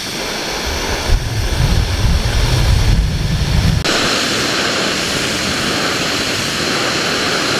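Jetboil Sol backpacking stove's canister gas burner running at full flame with a steady hiss. A heavier low rumble lies under it for the first few seconds, and from about four seconds in it settles into a brighter, even hiss.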